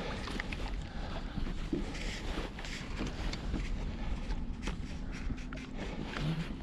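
Wind rumbling on the microphone in an open boat, with scattered knocks and taps as people move about and handle gear in the boat.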